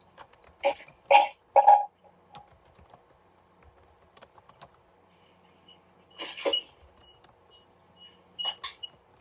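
Typing on a computer keyboard: irregular keystrokes, with louder clusters of clicks about a second in, again past the middle and near the end.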